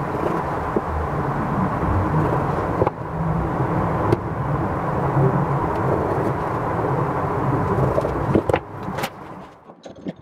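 Steady low mechanical rumble with a faint high hum, as of a machine running, with a few light taps and clicks over it. It fades away near the end, where a few sharper clicks begin.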